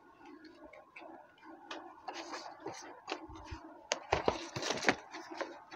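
Faint clicks and rustling of cardboard display boxes of plastic-packed rakhis being handled, with a cluster of sharper taps about four to five seconds in.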